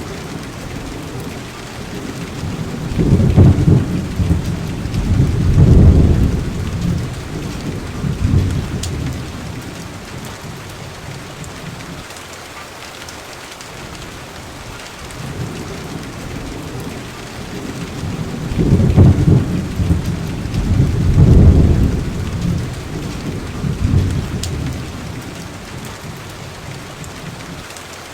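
Steady rain falling, with rolling thunder rumbling in twice, each roll lasting several seconds with a few swells.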